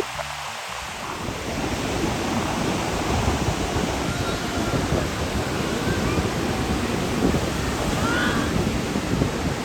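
Ocean surf breaking, with wind buffeting the microphone: a loud, steady rush with a deep rumble that grows stronger about a second in.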